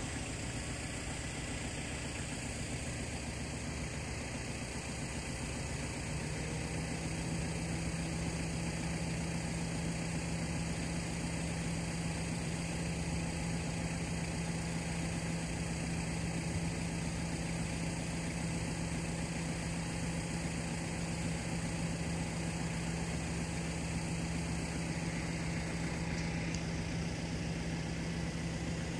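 A steady low engine hum, like a vehicle idling, that comes in about six seconds in and holds, over a constant outdoor noise hiss.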